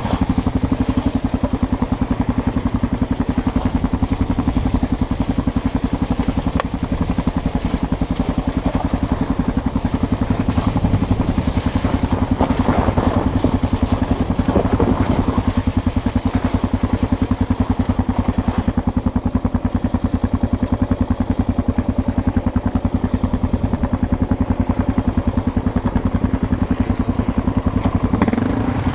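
Dual-sport motorcycle engine running steadily under way, its firing pulses even and unbroken with little change in speed.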